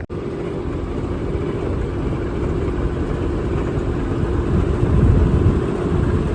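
A boat's motor running steadily at low speed, with a low rumble of wind on the microphone swelling about two-thirds of the way in.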